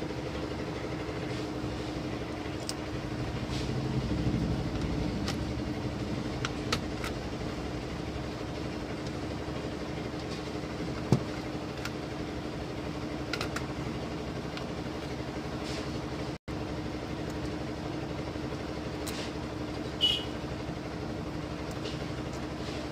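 A circuit board being handled and fitted back into an amplifier chassis: a few light clicks and knocks over a steady low background drone with a faint steady tone.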